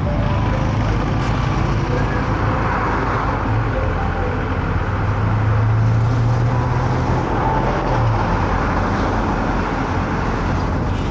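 Car driving along a road: steady engine and tyre noise, with a low drone that swells from about four to eight seconds in.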